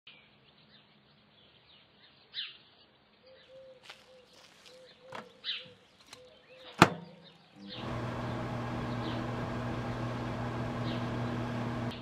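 Birds chirping, then a microwave oven door shutting with one sharp, loud click about seven seconds in. Under a second later the microwave starts up with a steady electrical hum that runs on.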